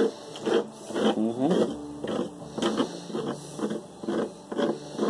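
A small hard edge scraping powder across a clear plastic sheet in quick repeated strokes, about two a second. Each stroke gives a rasping squeak, with one longer gliding squeal about a second and a half in.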